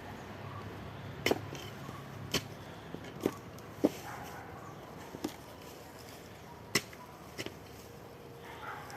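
Sharp knocks like chopping or hacking strikes, about seven of them at irregular intervals, over a faint steady background.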